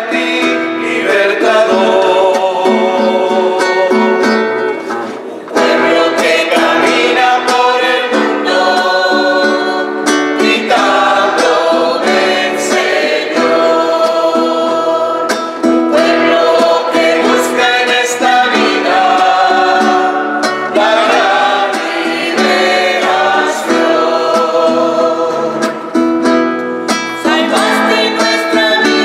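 A small mixed choir of men and women singing a church song together, accompanied by acoustic guitar and electric bass guitar, with a short break between phrases about five seconds in.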